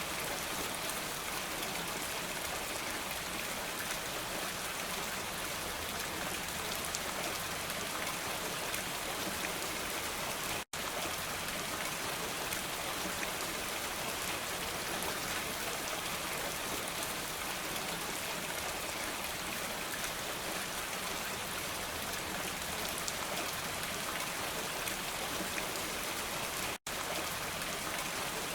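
Steady rain falling, an even hiss with no thunder, cut by two split-second dropouts to silence, about ten and twenty-seven seconds in.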